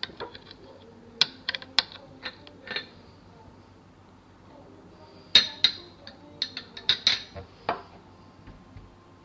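Cutlery clinking against a plate or bowl: a string of short, sharp clinks, a few in the first three seconds and a busier cluster from about five seconds in.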